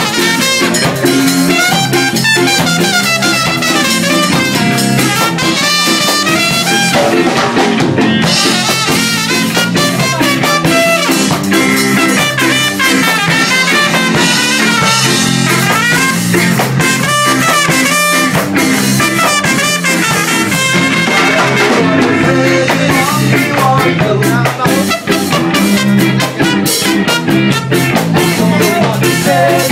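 Live ska band playing a song, with a trumpet lead over electric guitar, bass guitar and drum kit.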